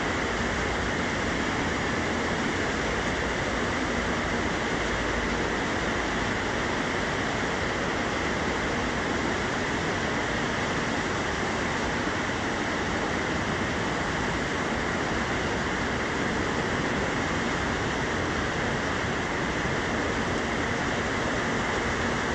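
Steady industrial noise of a factory hall: an even, unbroken rush with a faint low hum.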